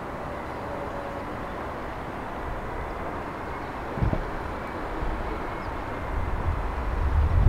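Jet aircraft engine noise: a steady hiss with a faint whine in it. Wind gusts on the microphone, with one thump about four seconds in, and the gusting grows stronger near the end.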